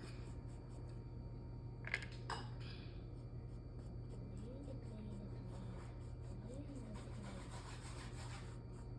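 Paintbrush strokes rubbing on canvas, faint, over a steady low electrical hum, with a single light tap about two seconds in.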